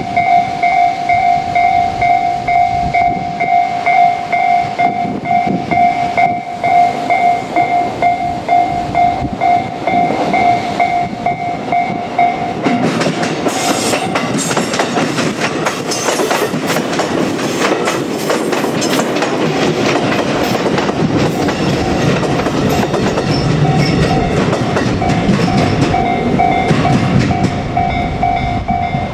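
Japanese level-crossing alarm ringing with a steady, rapidly repeating electronic clang. About twelve seconds in, a JR Kyushu 787-series electric train starts running over the crossing, its wheels clattering over the rail joints for about fourteen seconds while the bell is lost under it. The bell is heard again near the end.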